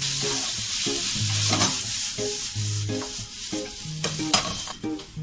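Carrots, onion and garlic sizzling in hot oil in a pan with oyster sauce just added, stirred with scraping, clattering strokes of a spatula. The sizzle thins out near the end.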